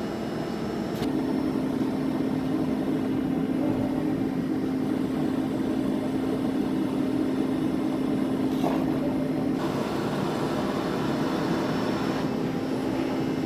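Gildemeister NEF 520 CNC lathe running, a steady machine hum setting in about a second in and holding even, with a faint click partway through.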